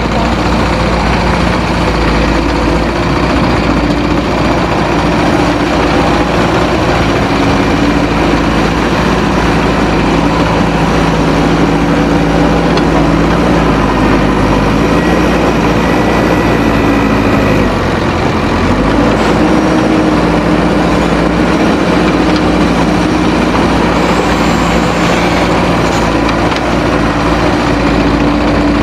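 Heavy-equipment diesel engine running steadily under work, its pitch dipping and rising about halfway through as the throttle changes.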